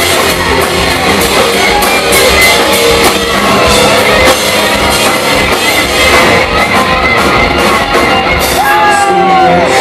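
A hard rock band playing live and loud: electric guitars, bass and drums with singing. A few pitch slides near the end.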